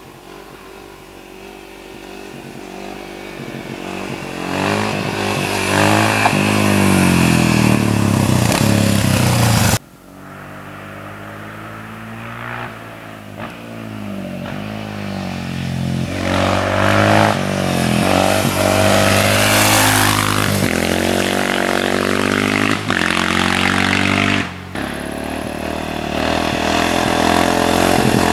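Honda XR650R's big liquid-cooled single-cylinder four-stroke engine on the throttle as the motorcycle is ridden toward and past, in three passes that each cut off suddenly. Each pass builds from far off to loud, the engine note rising and falling as the throttle is worked.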